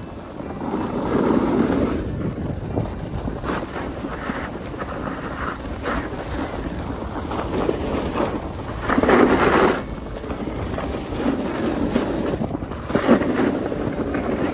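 Edges hissing and scraping over packed snow on a run down a groomed ski slope, swelling with each turn: once about a second in, most strongly around nine seconds, and again near the end. Wind buffets the microphone throughout.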